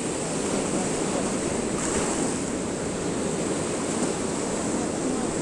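Sea surf: waves breaking and washing in over a concrete-block sea wall as a steady rushing sound, with a brighter wash about two seconds in.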